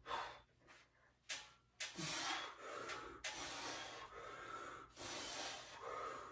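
A man breathing hard with effort in a series of forceful, noisy breaths, each about half a second to a second long, while working through a set of weighted dips.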